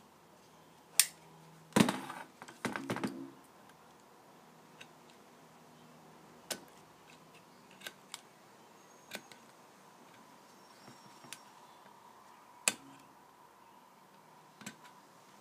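Steel Kohler flywheel knocking against a sheet-metal workbench as it is picked up and tilted: a few sharp clanks with a short ring about two seconds in. After that come scattered light clicks and taps as the magnet ring is worked on by hand.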